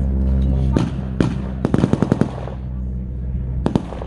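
Blank gunfire in a mock battle: two single shots about a second in, then a rapid burst of about eight rounds, then two more shots near the end. A steady low engine-like drone runs underneath and is louder in the first second.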